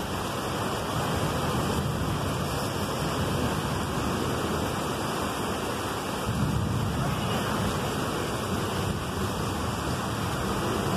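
Heavy rain pouring down steadily, a constant hiss that swells slightly about six seconds in.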